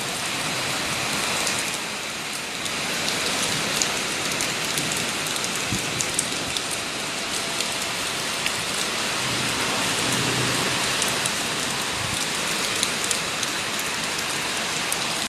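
Heavy rain pouring down steadily, with many small sharp drop impacts pattering on surfaces.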